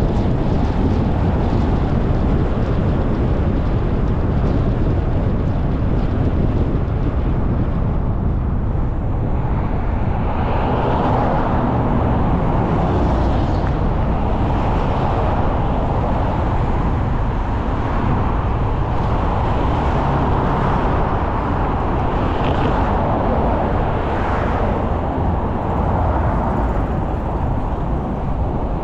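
Steady road and wind noise from a car driving on city streets: a dense low rumble that swells and eases several times in the second half.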